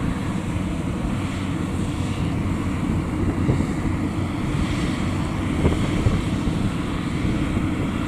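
World WD102 Plus tracked rice combine harvester running steadily as it drives through the crop, a continuous low engine drone with wind buffeting the microphone.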